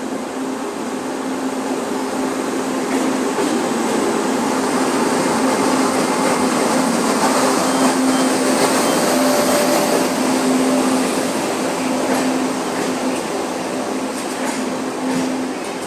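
Train pulling into a station: a steady rolling rumble that builds to its loudest about halfway and then eases slightly, over a steady low hum, with a few sharp clicks near the end.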